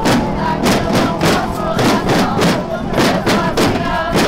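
Marchers' drums beaten in a steady, fast rhythm, with a crowd of women singing and chanting along.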